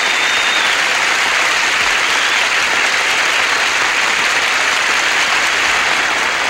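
Studio audience applauding steadily in sustained welcome, with a brief high whistle near the start.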